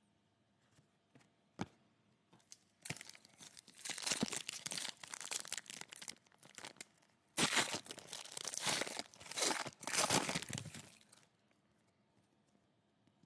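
Foil trading-card pack wrapper being torn open and crinkled by hand, in two long rustling stretches.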